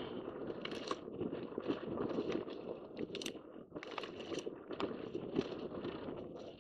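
Dirt bike riding over rough, rocky desert trail: a steady crunching and clattering of stones and gravel under the tyres, with many sharp irregular clicks over a dull noisy rumble.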